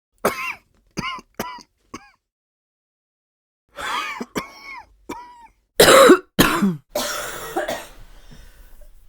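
A person coughing repeatedly. Four short, high-pitched coughs come in the first two seconds and another cluster about four seconds in, then louder, deeper coughs about six seconds in trail off into a raspy, breathy stretch.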